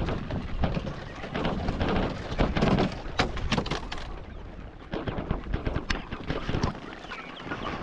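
A run of sharp, irregular taps and knocks as chickens feed at the feeders, with wind rumbling on the microphone. A few short chick peeps come near the end.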